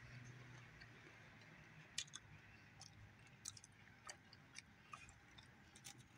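Near silence: faint room tone with scattered, irregular soft ticks and clicks, the sharpest about two seconds in.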